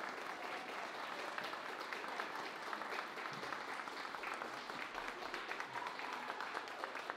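A crowd of wedding guests applauding, a dense patter of clapping that thins to scattered single claps near the end.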